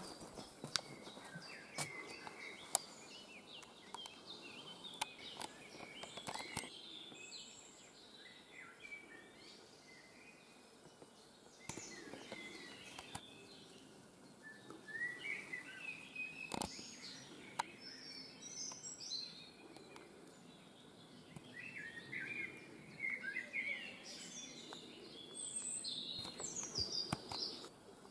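Woodland songbirds chirping and singing in scattered bursts, with quiet pauses between, over the soft footsteps of someone walking and a few sharp clicks.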